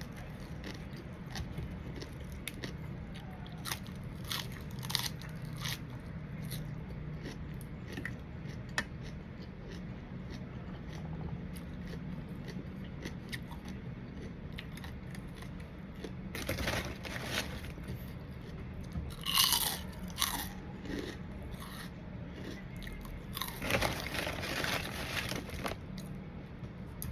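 Close-miked eating: a person biting and chewing crunchy som tam (green papaya salad with pickled crab and fresh shrimp), with many scattered sharp crunches and three louder spells of crunching in the second half.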